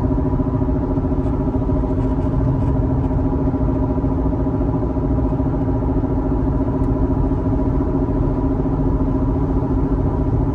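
A failing front wheel bearing on a Lexus at highway speed, about 60 to 70 mph, heard from inside the cabin as a steady hum with several held tones over tyre and road rumble.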